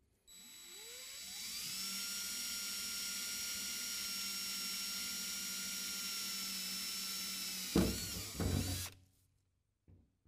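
DeWalt cordless drill spinning up with a rising whine, then running steadily as it bores a pilot hole through the sheet metal of a truck bed. Near the end there are a couple of louder bursts before the drill stops.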